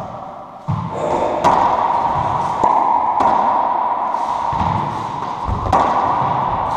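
Racquetball rally: a hollow rubber ball struck by racquets and smacking off the court walls, about five sharp hits over several seconds, each ringing out in the enclosed court's echo.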